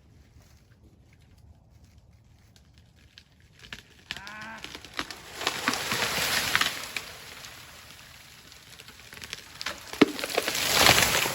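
Hinge-cut ash tree going over: the hinge wood gives a short bending creak, then branches rush and crash down. A sharp crack comes near the end, followed by another loud rush of limbs.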